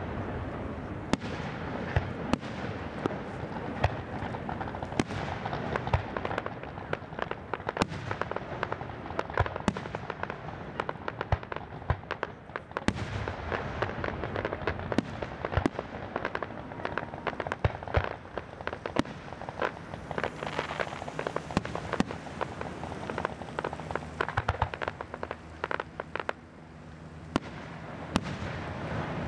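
Aerial fireworks shells bursting in quick succession: many sharp bangs, several a second, over a continuous crackling.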